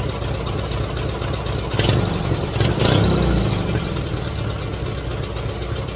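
Opposed-twin engine of an MTD racing mower idling through its newly fitted, enlarged exhaust, blipped twice about two and three seconds in, the revs falling back to idle after each.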